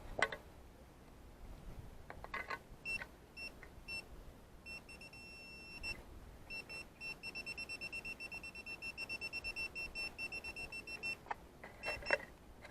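Metal detector beeping over a buried target, a coin: a few short beeps, then a held tone, then a fast run of rapid beeps. A few short knocks come in among them.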